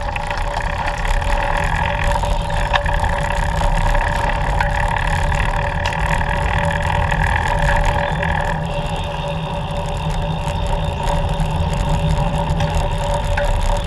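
Steady road noise on the move: a low rumble with a few steady humming tones that shift slightly a little past halfway.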